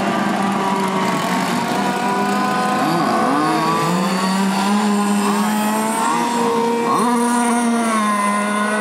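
Several gas-powered RC racing boats' small two-stroke engines running at high revs together, a high-pitched buzz whose pitch rises and falls as the boats speed past.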